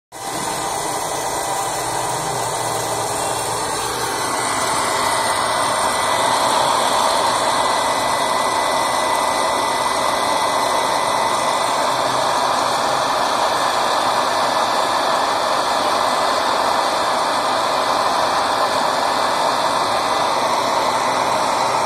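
Hot-air popcorn maker (1100 W) running, its fan blowing a steady hair-dryer-like whir. The sound grows a little louder about five seconds in, then holds steady.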